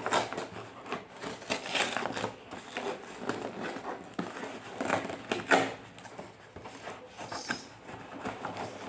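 Packaging crinkling and rustling as a selfie stick is unwrapped and handled, in irregular crackles with a few sharper snaps.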